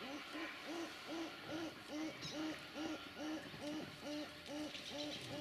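An animal's call: a long series of low, evenly spaced hoots, about two or three a second, keeping the same pitch throughout.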